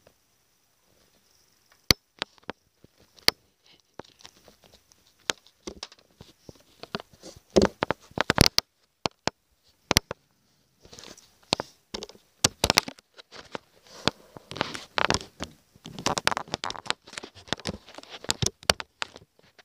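Handling noise: fabric rustling and rubbing against the phone's microphone as it is moved under a sheet, with many sharp clicks and knocks. Sparse at first, it grows busier and louder in the second half.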